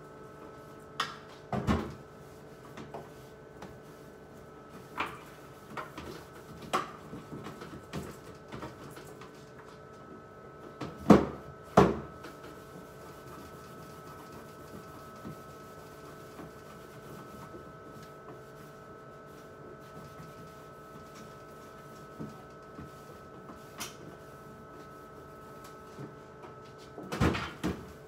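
Plastic refrigerator door bins and items being handled during cleaning: scattered knocks and clunks, with the two loudest knocks about eleven and twelve seconds in and a short clatter near the end. A steady hum runs underneath.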